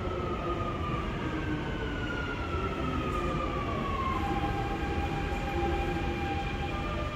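A Dubai Metro train braking into the station behind glass platform screen doors. Over a steady rumble, a whine falls in pitch and levels off to a steady tone about four seconds in.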